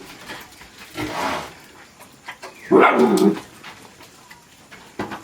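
A dog barking or crying out twice: a short call about a second in and a louder, longer one about three seconds in.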